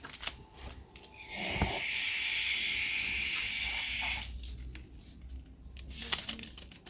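Dry seasoning poured onto raw chicken: a steady hiss lasting about three seconds, starting about a second in, with light clicks and rustles of handling before and after it.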